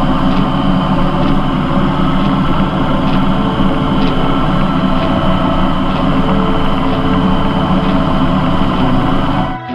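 Farm tractor's diesel engine running steadily under way, heard close up from a camera on its bonnet. The engine sound cuts off suddenly near the end.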